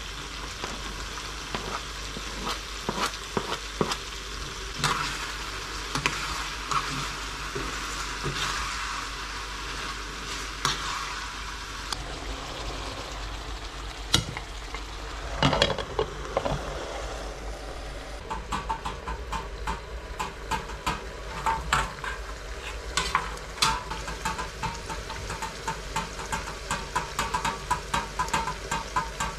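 Lamb and chopped tomatoes sizzling steadily in a frying pan. A sharp knock and a clatter come about halfway through. In the last third a metal spoon stirs the pan with quick, repeated clinks and scrapes.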